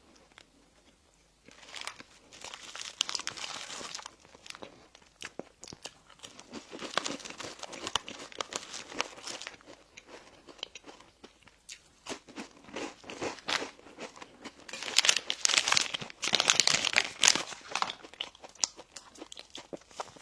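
Close-miked eating of bakery pastries and packaged sweets: crunchy bites and chewing mixed with crinkling of plastic wrapping, coming in four bursts of a few seconds each. The burst about two-thirds through is the loudest.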